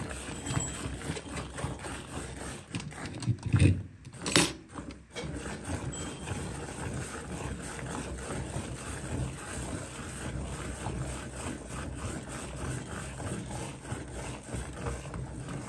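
Hand milking: rhythmic streams of milk squirted from a cow's teats into a steel bucket of frothy milk. About four seconds in there is a brief louder thump and a sharp knock.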